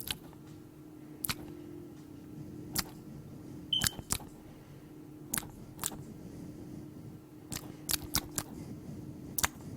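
Gum-chewing smacks: about a dozen sharp, irregular mouth clicks over a low steady hum.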